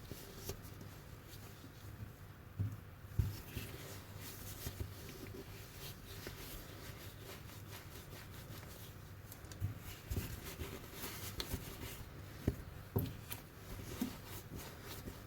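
Faint rubbing and scattered light taps and clicks of hands handling objects over a low steady hum.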